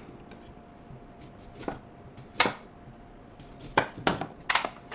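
Chef's knife slicing through fresh ginger root and knocking on a wooden cutting board: two single cuts, then a quicker run of about five near the end.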